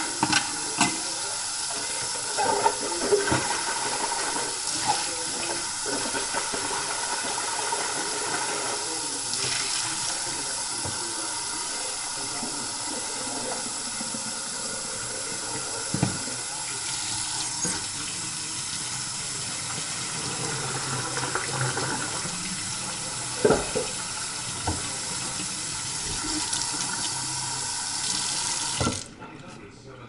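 Kitchen faucet running steadily into a sink while a plastic blender jar is rinsed under the stream, with a few knocks along the way. The water is shut off about a second before the end.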